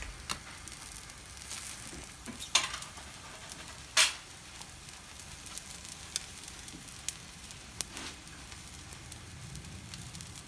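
Chicken yakitori skewers sizzling over glowing charcoal on a commercial charcoal grill, with scattered sharp crackles and pops. A few louder snaps stand out, the loudest about four seconds in.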